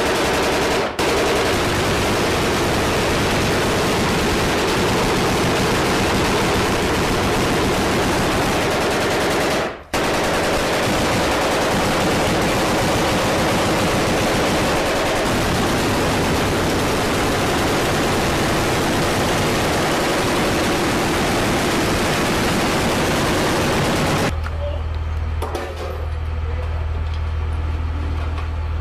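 Continuous heavy machine-gun fire, dense and unbroken apart from two brief cuts. About 24 seconds in it gives way to a low steady drone.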